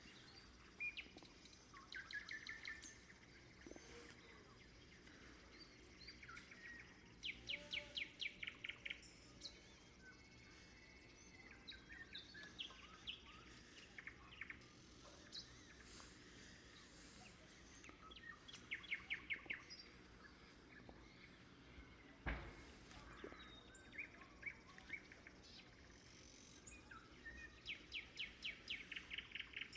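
Nightingale singing in separate phrases of fast repeated notes, a new phrase every few seconds, over faint outdoor background noise. A single sharp click about two-thirds of the way through.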